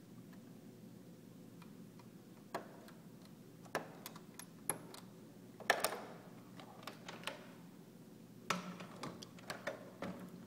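Kaba Simplex mechanical push-button lock clicking as its buttons are pressed and its knob is worked: a series of separate sharp clicks, the loudest about six seconds in and a quick run of them near the end.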